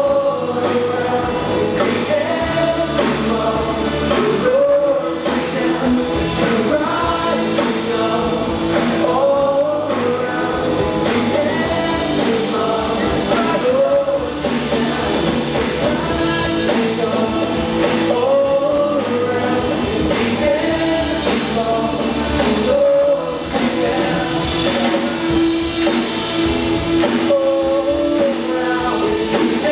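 Live worship band playing a song, a male lead singer on microphone over drums, electric guitars and tambourine, with a steady beat.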